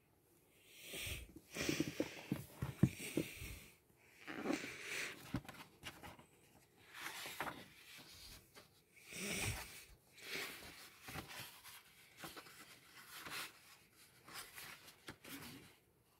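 Paper rustling as the pages of a large softcover comic and puzzle book are handled and turned: a series of brief swishes with a few light taps.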